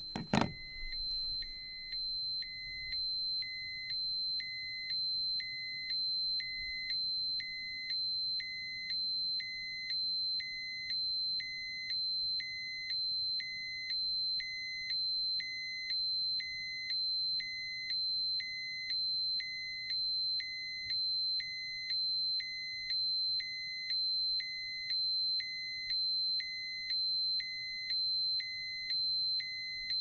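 Dosimeter alarm: a steady high-pitched electronic tone with a lower beep pulsing about once a second. A single thump sounds right at the start.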